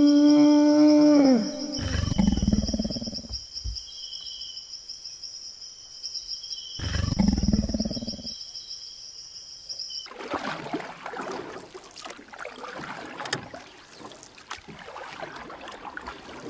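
Animal sound effects: a long, drawn-out cat-like call that bends down and stops about a second in, followed by two low rumbling roars about five seconds apart, over a steady high-pitched tone. From about ten seconds in, a rushing hiss takes over.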